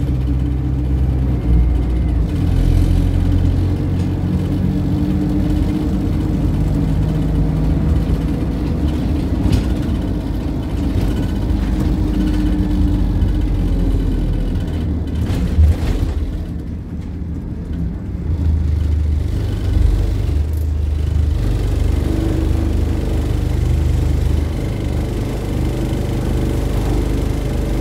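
Dennis Dart single-deck bus's diesel engine heard from inside the saloon, running under load as the bus drives, its note rising and falling with changes of speed. It softens for a few seconds a little past halfway, then picks up again.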